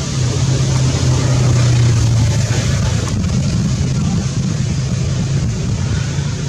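A steady low engine drone, like a motor vehicle running, over a constant wash of noise.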